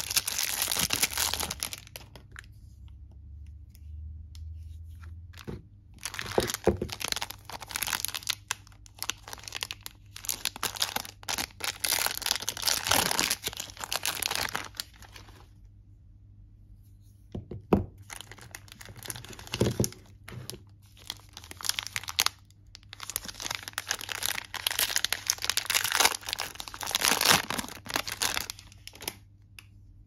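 Soap wrappers, the first a clear plastic film, crinkling and tearing as bars of soap are unwrapped by hand, in several bouts with short quieter pauses between. A couple of sharp clicks stand out about two-thirds of the way through.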